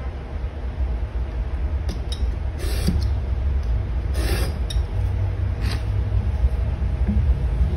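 A utility knife drawn along a steel ruler through leather: a few short scraping cuts, about two seconds in and again around four seconds, over a steady low rumble.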